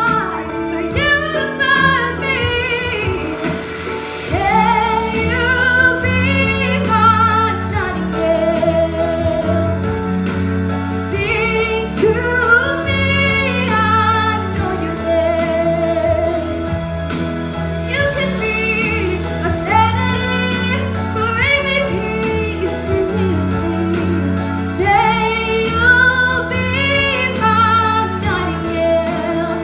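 A young woman singing a slow ballad solo, with vibrato on her held notes, over a steady instrumental backing of sustained chords.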